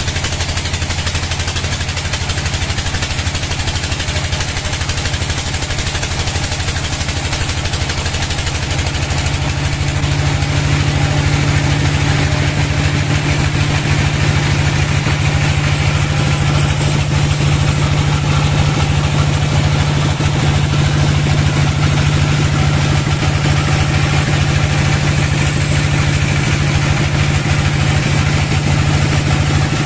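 Sawmill log band saw running and cutting along a log: a loud, steady mechanical hum that steps up in pitch and gets a little louder about nine seconds in.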